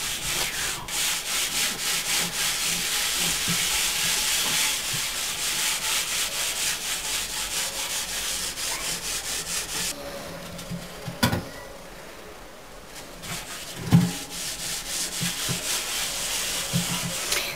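Wet steel-wool scouring pad scrubbed fast back and forth over the side of a large aluminium cooking pot, a dense rasping scrape as soot and grease softened by a cleaning paste are rubbed off. About two-thirds through the scrubbing eases off for a few seconds, with a couple of sharp knocks, then picks up again.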